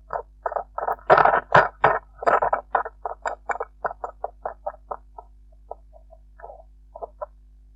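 Hedgehog coughing in a fast run of short, breathy hacks, about four a second, which grow fainter and further apart until they stop near the end.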